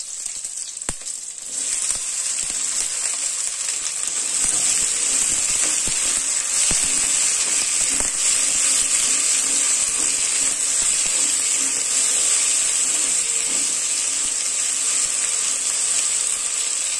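Sliced okra going into hot oil in an iron kadai: the sizzle jumps up about a second and a half in and then goes on steadily. A wooden spatula stirring the okra makes scattered light taps and scrapes against the pan.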